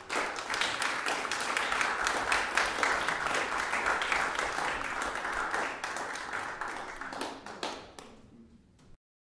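Audience applause: dense clapping that thins out over the last couple of seconds before the sound cuts off.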